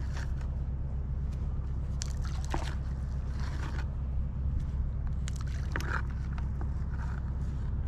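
Steady low rumble of outdoor ambience at the water's edge, with scattered short clicks, scrapes and small sloshing sounds of fishing gear being handled.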